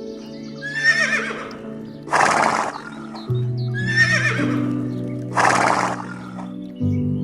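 Horse whinnying: a quavering, wavering call followed by a short harsh breath, the pair heard twice, over steady background music.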